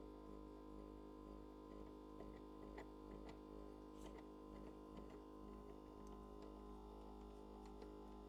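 Near silence: a faint steady hum, with a few faint ticks in the middle stretch. The hum fits the LCD separator's vacuum pump, which runs while the screen is held down for cutting.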